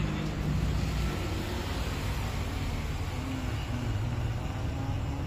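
Honda HR-V RS turbocharged engine idling steadily through a newly fitted aftermarket stainless muffler, a low even drone from the exhaust tip.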